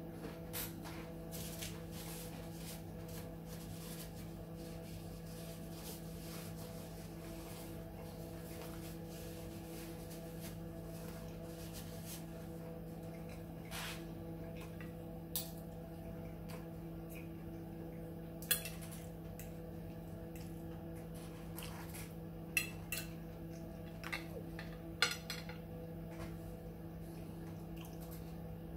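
Metal fork clinking and scraping against a ceramic dinner plate, with a handful of sharp clinks mostly in the second half, between bouts of chewing. A steady low hum runs underneath.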